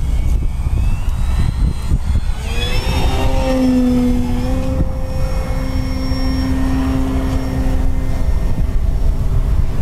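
Electric motor and propeller of an FMS Pitts 1400 mm RC biplane on a close flyby: a whine that drops in pitch as the plane passes, about three seconds in, then holds steady until about eight seconds. Heavy wind noise on the microphone rumbles underneath throughout.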